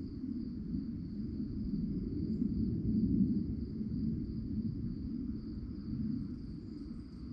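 Crickets chirping in a steady, continuous high-pitched trill, over a louder low rumbling noise.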